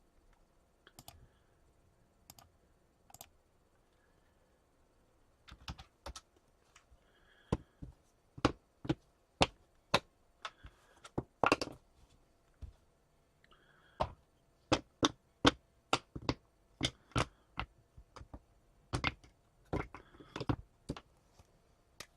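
Typing on a computer keyboard: irregular runs of sharp key clicks, sparse at first and busier from about five seconds in.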